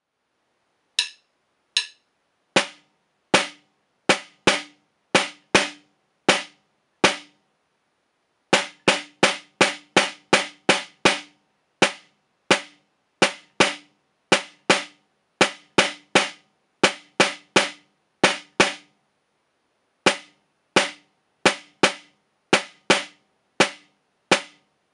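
Concert snare drum played with wooden sticks: a short etude in 2/4 of separate single strokes in quarter and eighth notes, with rests and longer pauses between phrases. Each stroke is sharp and dies away quickly, and there are no rolls.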